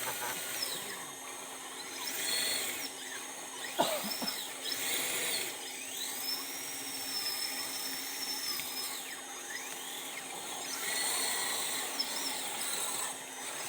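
Electric motor and ESC of an RC rock crawler whining as the throttle is worked, the high whine gliding up and down several times and holding steady for a few seconds in the middle. A single sharp click about four seconds in.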